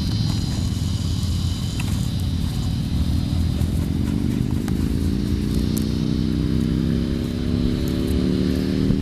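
A motor engine running over a low rumble, rising slowly in pitch and growing louder from about three seconds in as it speeds up or draws nearer.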